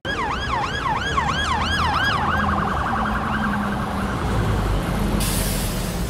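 Emergency vehicle siren sweeping up and down about three times a second, then switching to a faster warble that fades out, over steady street traffic noise. A short hiss comes near the end.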